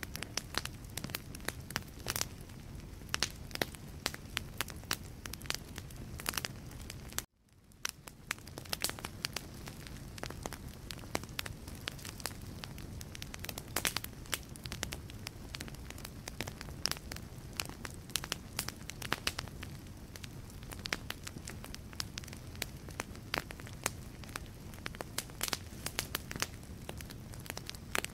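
Wood logs burning in a fireplace, crackling and popping irregularly over a low steady rumble of the flames. About seven seconds in the sound cuts out for a moment and fades back in.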